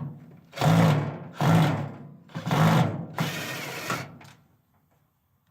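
Power drill-driver running in four short bursts, backing out the screws that hold a microwave's parts.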